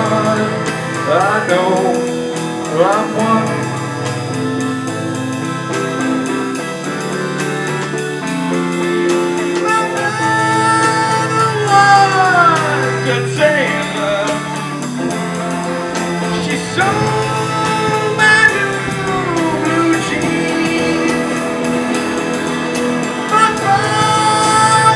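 Live blues-rock band playing: electric and acoustic guitars and a drum kit, with a harmonica at the start and then a male lead vocal holding long notes that slide down at their ends.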